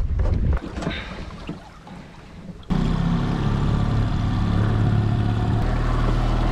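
Yamaha 9.9 outboard motor running steadily, its propeller churning the water. It comes in suddenly about two and a half seconds in, after a quieter stretch of handling sounds.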